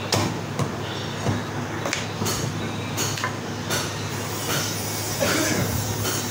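A butcher's cleaver chopping a mutton leg on a wooden chopping block: about seven uneven knocks in the first four seconds. Then quieter scraping as a knife cuts through the meat.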